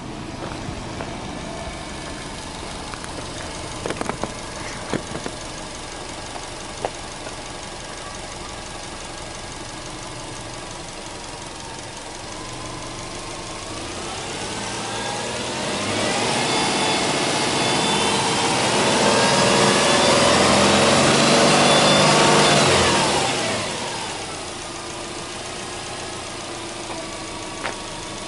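Subaru Legacy B4 2.0GT spec.B's turbocharged 2.0-litre flat-four boxer engine idling, then free-revved with the car standing: the pitch climbs over a few seconds, is held high and loud for about seven seconds, then drops back to a steady idle. A few light clicks sound over the idle in the first several seconds.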